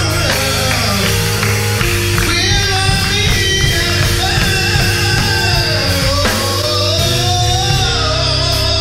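Gospel choir singing with band accompaniment, held bass notes underneath the voices.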